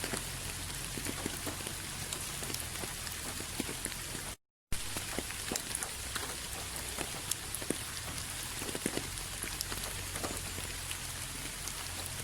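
Steady rain falling, with individual drops striking close by as short ticks over an even hiss. About four and a half seconds in, the sound cuts out completely for a split second and then resumes.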